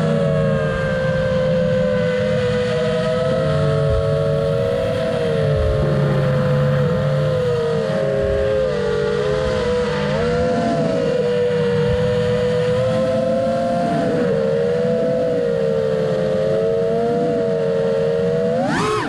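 FPV quadcopter's electric motors and propellers whining steadily, the pitch wavering up and down with throttle as it cruises, over a low rushing noise. Near the end the whine jumps sharply up in pitch and drops back.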